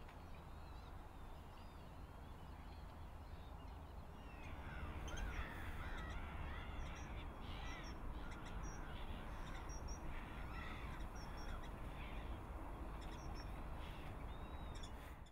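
Several birds calling in overlapping, chattering calls over a low rumble of wind. The calls become louder and busier about four seconds in.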